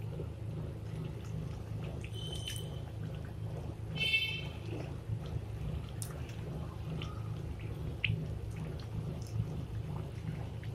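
Kachoris frying in oil in an aluminium kadai, a gentle bubbling sizzle from oil kept only lightly hot on a low flame so the thick kachoris cook through. A steel spatula scrapes and clinks against the pan as they are turned, with two brief metallic rings about two and four seconds in. A steady low hum runs underneath.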